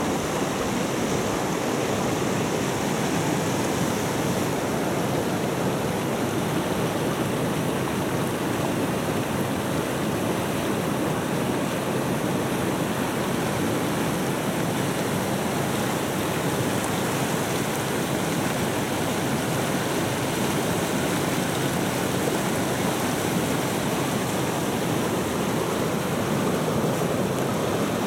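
A mountain river's white water rushing over stones: a steady, unbroken rush.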